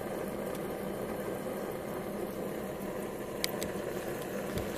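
Propane-fired Warpfive Stirling engine generator, with its small water pump and DC generator, running steadily at a settled speed, a quiet even mechanical running sound with a faint low hum. A few faint clicks come about three and a half seconds in.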